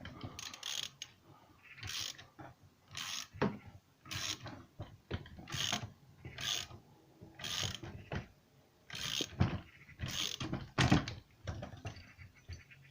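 Hand tools working metal parts on a Puch E50 moped engine's crankshaft end: a run of short, irregular metallic clicks and scrapes, about one a second.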